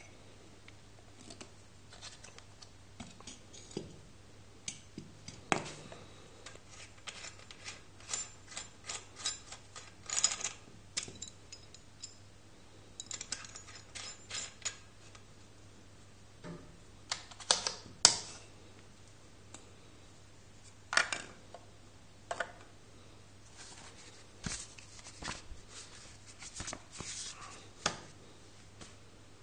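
Handling noise from an unboxed Rover Pompe wine pump, not running: scattered clicks, taps and rubbing as its brass hose fittings and plastic parts are turned and set down, with the sharpest click a little past halfway. Near the end the dense ticking turns to paper rustling as the instruction leaflet is handled.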